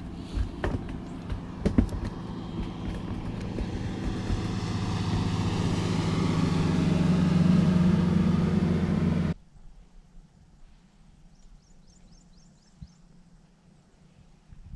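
An engine running steadily and growing louder for several seconds, with a few sharp knocks at first, then cut off abruptly. After that it is quiet, with a short run of bird chirps.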